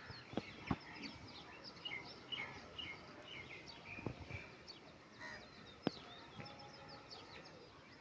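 Small birds chirping in many quick, short, high notes, with a few sharp taps in between.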